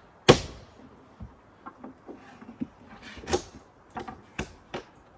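A sharp clunk, then a run of lighter knocks and clicks as a rooftop tent on a roof rack is folded shut and latched.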